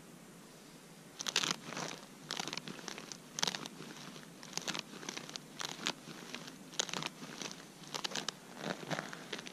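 Rubber boots stamping and shuffling in place on dry, frozen snow at about −30, each step a sharp crunch. The crunches begin about a second in and come irregularly, one or two a second.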